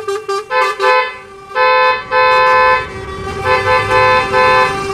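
Multi-tone musical vehicle horn, telolet style, sounding a rhythmic tune: a run of quick toots, two long blasts near the middle, then more quick toots.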